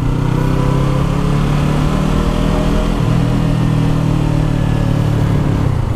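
Yamaha R3's 321 cc parallel-twin engine running steadily under way, its note dipping briefly about halfway through.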